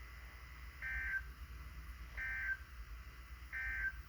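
Three short bursts of Emergency Alert System (SAME) digital data tones, each under half a second and spaced a little over a second apart, over faint hum: the end-of-message code that closes an alert broadcast.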